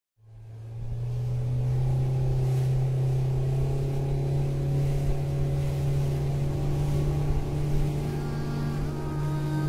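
Motorboat engine running steadily at speed, a low hum that fades in at the start. Near the end, soft musical tones come in above it.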